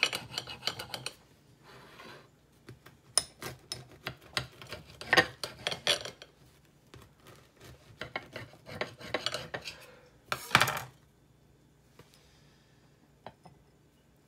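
A knife slicing through a browned garlic Parmesan pull-apart bread loaf, with scraping, rasping strokes and clicks of the blade against the plate or board. It comes in three bouts and goes quiet after about eleven seconds, leaving a few faint ticks.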